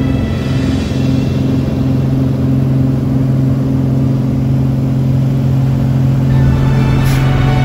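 Light single-engine propeller plane's engine and propeller at takeoff power, a steady loud drone heard from inside the cockpit through the takeoff roll, lift-off and initial climb. A brief click about seven seconds in.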